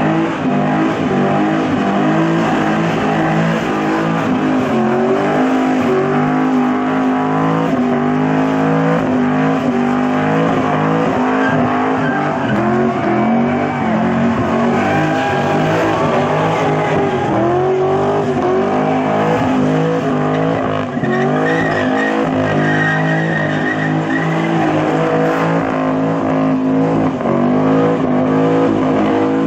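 Holden Commodore doing a burnout: the engine is held at high revs that rise and fall continuously while the rear tyres spin and squeal on the pad.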